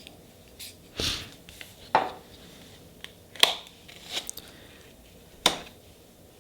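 Nail-stamping tools being handled: about five short clicks and scrapes spaced roughly a second apart, as white stamping polish is laid on a metal stamping plate and worked with a scraper and stamper.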